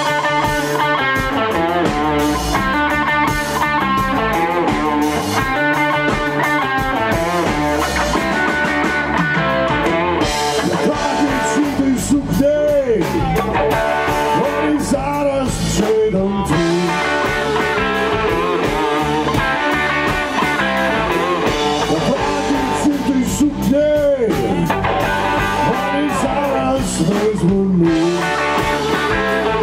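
Live electric blues band playing: electric guitars, bass guitar and drums, with a blues harmonica played into a microphone. Two long bent notes rise and fall, once near the middle and once near the end.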